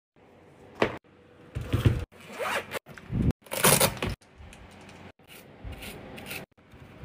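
Packaging being opened by hand: a series of zip-like rasping rips and scrapes, some long, some short, chopped by several sudden cuts.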